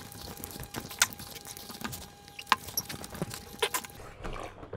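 Eating by hand from stainless steel plates: a few scattered clinks and clicks of fingers and a small steel bowl against the steel dishes.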